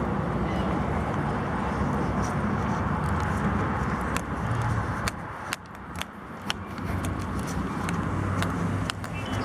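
Steady road-traffic noise from cars crossing a bridge, with a few sharp clicks scattered through it.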